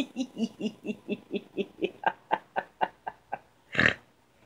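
A woman laughing: a run of about a dozen short "ha" pulses, about four a second, fading and turning breathier, followed by one short breathy burst near the end.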